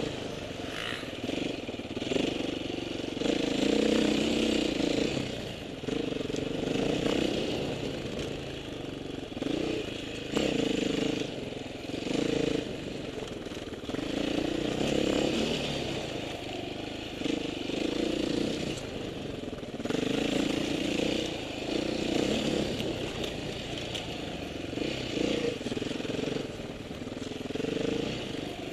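Off-road motorcycle engine under way, the throttle opening and closing every few seconds so the engine note repeatedly rises and drops back.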